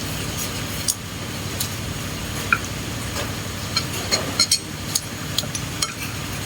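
Eating at a meal: a scattering of small sharp clicks and taps of utensils and dishes, with mouth sounds, over a steady low hum.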